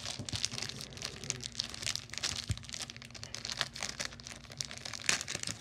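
Irregular soft crinkling and rustling close to the microphone, over a faint steady low hum.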